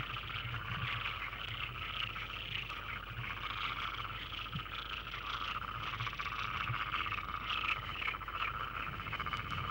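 A dense chorus of many frogs calling together, a steady trilling mass of fast pulsing calls, over a low steady hum.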